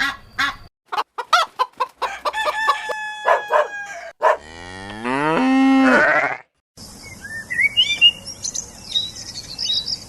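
Farm animal sounds in quick succession: hens clucking in a run of short calls, then one long cow moo rising in pitch and holding, then small birds chirping over a steady hiss. The parts start and stop abruptly.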